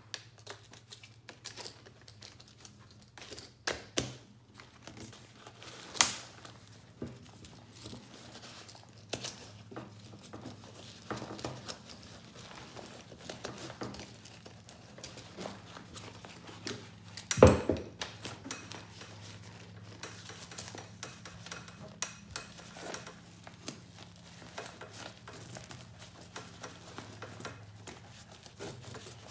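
Nylon webbing straps and a fabric pouch being handled and threaded through a rigid MOLLE panel: rustling and scraping with scattered clicks and knocks, the loudest two about 6 and 17 seconds in, over a faint steady low hum.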